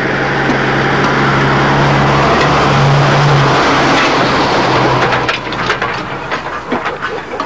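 Old lorry's engine running loud with a steady low hum as the truck comes along a dirt track, with noise up to the high end. It drops away about five seconds in, leaving a run of sharp knocks and clatters.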